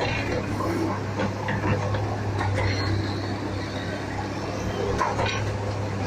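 Concrete mixer pump running, a steady low engine hum, with scattered clatters and knocks on top.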